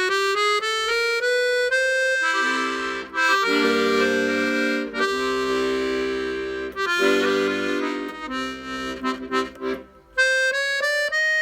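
Hohner Student 72 piano accordion, freshly repaired, playing a stepwise rising run of single notes, then several held chords with deeper notes, and single notes again near the end. It is a post-repair tone and tuning check, and the tuning is judged perfect.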